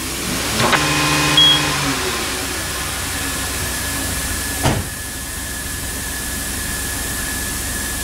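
Road force wheel balancer spinning a tire-and-wheel assembly to measure rim runout. Its motor starts up in the first couple of seconds, then runs steadily with a thin high whine, and there is a single knock about halfway through.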